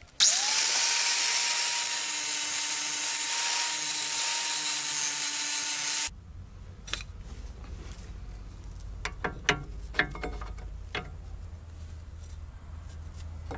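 Angle grinder spinning up and grinding the sides of new disc brake pads so that they fit the caliper: a steady whine over a harsh grinding noise for about six seconds, stopping abruptly. After that a low rumble with a few light metal clicks as the pad is handled at the brake caliper.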